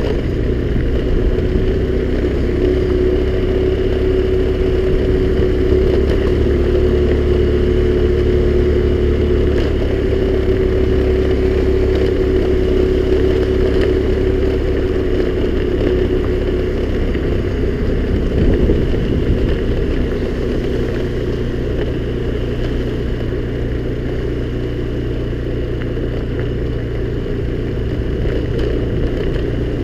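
Honda scooter's small engine running steadily under way, with a steady humming note that fades about two-thirds of the way through as the engine settles to a slightly lower, quieter running sound.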